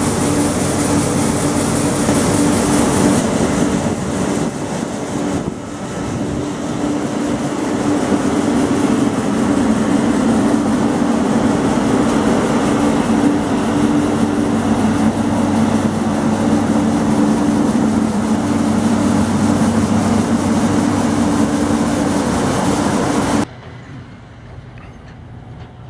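Combine harvester machinery running steadily at close range, a loud drone with a steady hum. For the first few seconds grain hisses as it pours from the unloading auger into a trailer. About 23 seconds in, the sound cuts to a much quieter, distant machinery hum.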